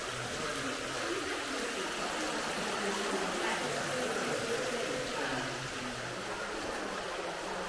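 Faint voices of people talking in the distance over a steady background hiss.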